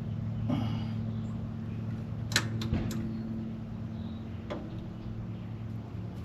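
A few sharp metallic clinks of hand tools against steel: the loudest about two and a half seconds in, another half a second later and one more near the end. They ring over a steady low hum.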